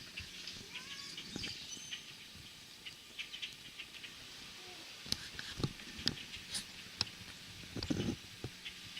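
A large flock of European starlings chattering, with many overlapping short chirps, clicks and brief whistles, and a few sharper clicks in the second half.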